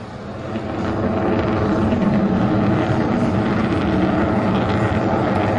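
Fighter jet's engines growing louder over the first second or so, then a steady loud rumbling roar as the jet flies overhead.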